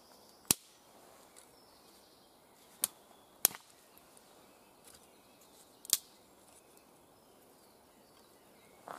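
Dry wooden sticks giving four sharp cracks as they are handled and set in place: about half a second in, twice around three seconds, and once near six seconds.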